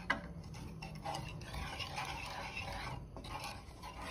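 A wooden spatula stirring a thin liquid in a small non-stick saucepan: a continuous soft swishing and scraping, with a short click against the pan just after the start.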